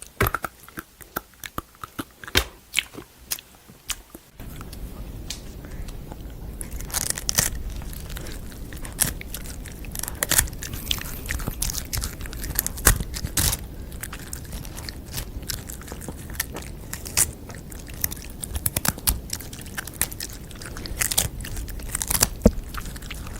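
Close-up biting and chewing crunches. Sparse sharp cracks for the first few seconds, then denser crunching over a steady hiss.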